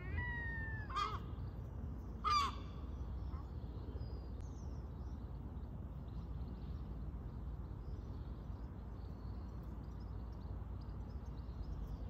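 Crow calling three times in quick succession: a drawn-out, slightly falling caw at the start, then two short caws about one and two seconds in. After that only a steady low background rumble.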